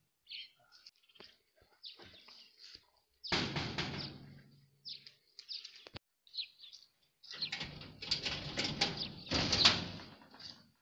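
Birds chirping in short scattered calls. Twice, for a couple of seconds each, a metal gate rattles and knocks loudly.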